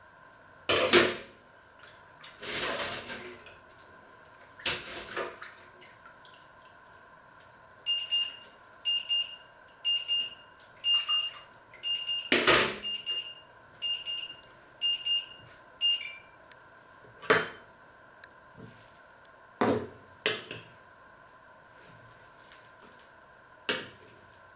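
An electronic timer or alarm beeping about nine times, roughly once a second, with a steady hum underneath. Sharp knocks and clatters of kitchen handling come before and after the beeps.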